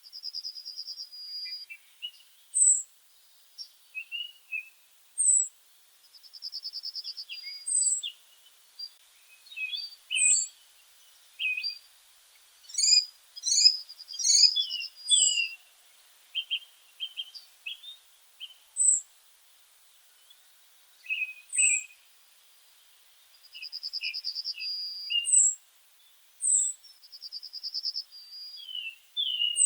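Several small songbirds singing together. A short, very high note repeats every couple of seconds, rapid trills of about a second come now and then, and lower chirps scatter between them, busiest in the middle.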